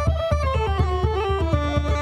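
Irish traditional pipe music: a quick, ornamented melody played over a steady low drone.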